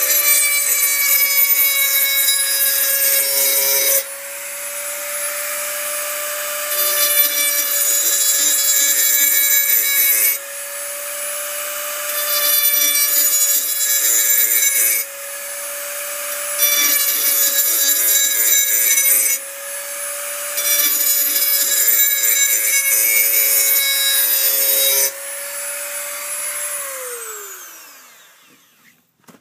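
Dremel rotary tool sharpening the edge of a steel lawn mower blade: the motor whines steadily while the bit grinds against the blade in five passes of a few seconds each, running free more quietly in between. Near the end it is switched off and the whine falls in pitch as it winds down.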